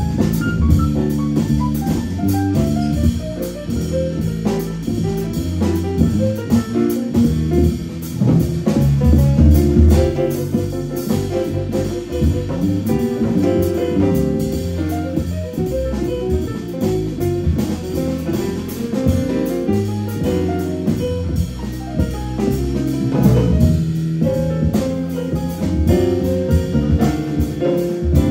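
A jazz trio playing live, a prominent double bass line moving through low notes under drums and cymbals.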